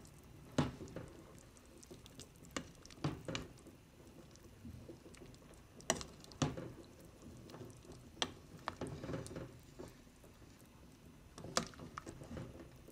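A pot of shrimp and fish soup being stirred with a silicone spatula: irregular light knocks and clicks against the stainless steel pot, with the broth sloshing.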